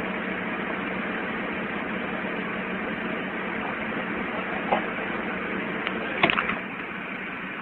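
Helicopter engine and main rotor still running after the airframe has broken apart, a steady mechanical noise with a low hum. A brief, sharper sound stands out about six seconds in.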